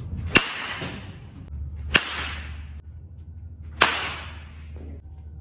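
Three sharp cracks of a baseball bat hitting pitched balls in batting practice, about two seconds apart, each with a short ringing tail.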